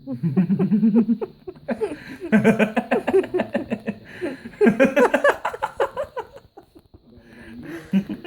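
A person laughing hard in four long fits, each a run of quick pulsing ha-sounds.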